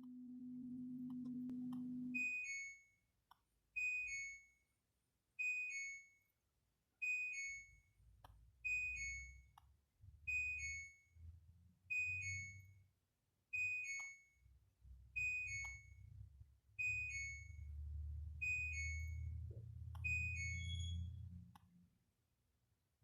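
Electronic alert beeping: a falling two-tone beep repeated about every second and a half, over an uneven low rumble. A steady low hum runs for the first two seconds and stops just before the beeps begin.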